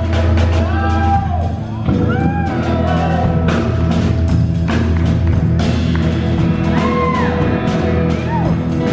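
Live band playing an instrumental passage: regular drum hits over a steady bass, with a lead line whose notes bend up and down.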